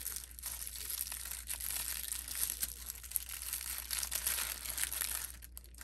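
Tissue paper crinkling and rustling as it is unwrapped by hand, with a brief lull near the end.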